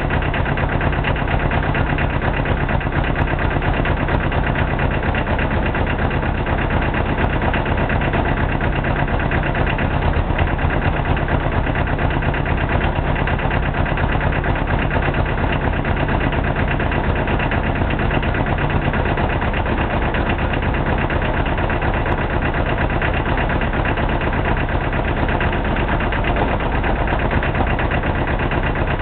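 McCormick Farmall tractor engine from the 1950s running steadily at an even speed, its fast firing beat unchanged throughout.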